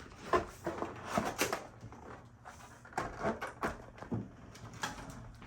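A cardboard model-train box and its packaging being opened and handled: irregular light knocks, clicks and scuffs, several in quick succession about a second in and again around three seconds in.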